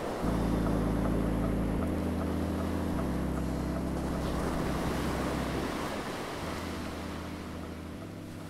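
Added soundtrack: a steady rushing wash like ocean surf over sustained low tones that shift in pitch every second or two, slowly fading toward the end.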